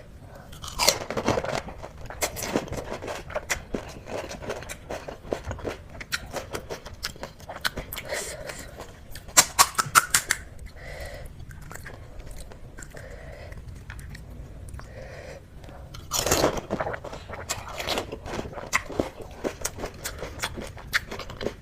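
Close-miked chewing and crunching of golgappay (pani puri): crisp puri shells bitten and crunched, with wet chewing in between. Louder bouts of crunching come about a second in, around the middle, and again about three-quarters of the way through.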